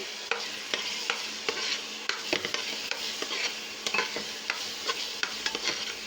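Oil with turmeric and red chilli powder sizzling in a cooking pot while a spoon stirs it, with frequent clicks and scrapes of the spoon against the pan.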